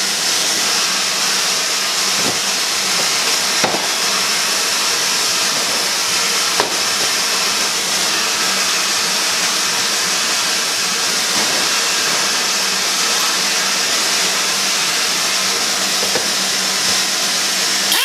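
Steady, even hiss with a faint low hum under it, and a few light clicks of metal parts being handled on a steel workbench, about two, four and seven seconds in.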